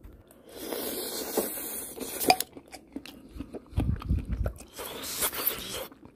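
Blowing on a hot spoonful of corn cheese for about a second and a half, then chewing it: scattered clicks and soft wet mouth sounds of sweet corn and melted mozzarella being eaten.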